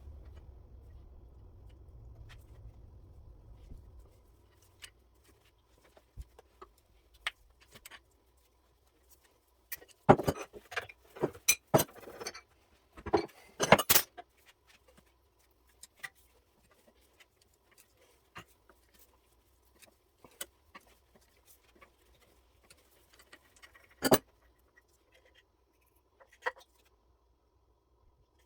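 Small metal parts and hand tools clinking and clattering as they are handled on a bench, with scattered clicks and a cluster of louder metallic knocks about ten to fourteen seconds in, plus one more about twenty-four seconds in. A low hum stops about four seconds in.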